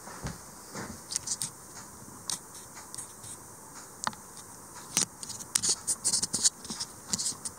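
Irregular small scratches and clicks, growing busier from about five seconds in.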